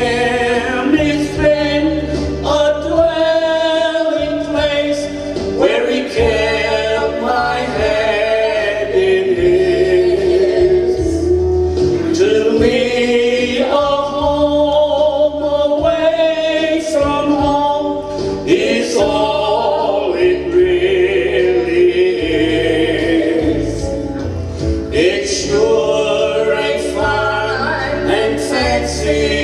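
A man and a woman singing a gospel song together into handheld microphones, with sustained sung notes over an instrumental accompaniment that carries steady bass notes.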